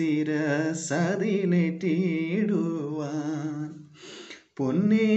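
A man singing a Malayalam Christian song solo and unaccompanied, holding long notes with vibrato. He breaks off for a breath about four seconds in, then starts the next line.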